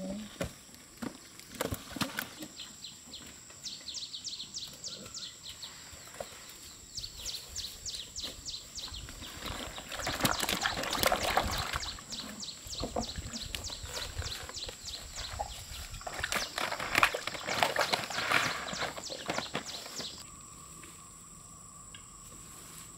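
Water splashing and knocking in irregular bursts with scattered sharp clicks, as catfish are caught and handled in a pond; the two loudest bursts come about halfway through and again near the end. About three seconds before the end it switches to a quieter steady background with a faint hum.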